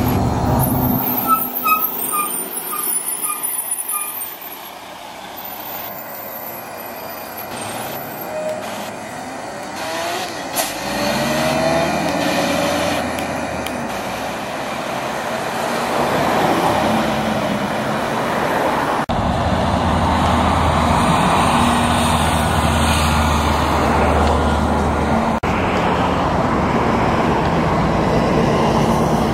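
Buses driving past one after another over road traffic, engines and tyres. Partway through, one bus's engine pitch rises as it accelerates away, and later another passes with a steady low engine hum.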